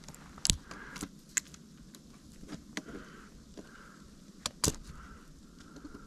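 Steel body-grip trap and its chain clinking as they are handled against a tree trunk: a few sharp metal clicks and rattles, the loudest about half a second in and again near five seconds in.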